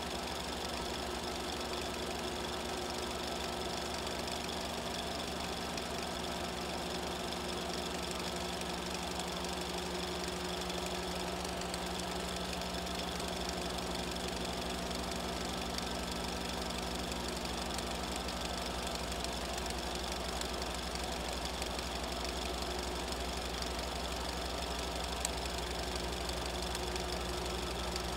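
A small machine running steadily: a constant hum with a fast mechanical rattle, unchanging throughout.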